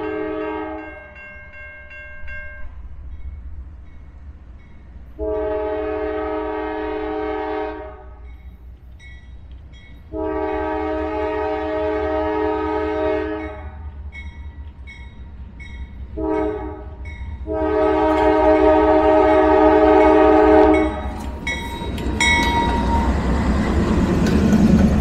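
Norfolk Southern diesel freight locomotive's multi-chime air horn sounding for the grade crossing: a blast ends about a second in, then long, long, short, long as the train approaches. Near the end the lead locomotives pass close, with the diesel engine rumble and wheel noise rising.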